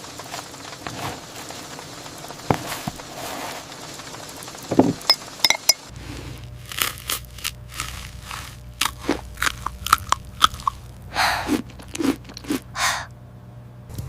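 Someone biting into and chewing crunchy food, a series of short crisp crunches that come thick and fast from about six seconds in.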